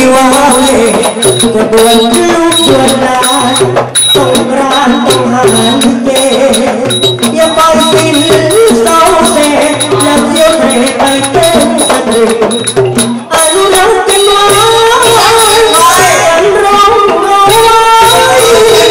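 A male likay singer sings through a microphone and PA over Thai folk-style instrumental backing with a steady drum beat, with the other performers clapping along.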